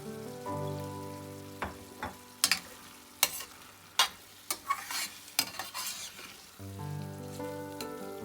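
Banana blossom adobo sizzling in a pan as it is stirred, with a dozen or so sharp clicks of a utensil against the pan in the middle. Background music plays at the start and again near the end.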